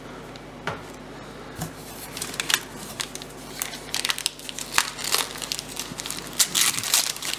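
Gift wrapping crinkling and tearing as a small package is unwrapped by hand, in irregular crackles that grow busier after about two seconds.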